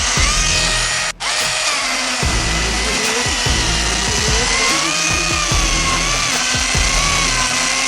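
Milwaukee M18 Fuel 16-inch cordless chainsaw's electric motor whining as it cuts wood, its pitch dipping and rising with the load. The sound breaks off briefly about a second in.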